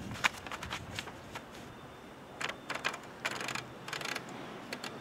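A sheet of paper rustling as it is fed into a manual typewriter, the machine's carriage and platen clicking and ratcheting as the paper goes in. A sharp click just after the start, then several short rustling stretches in the second half.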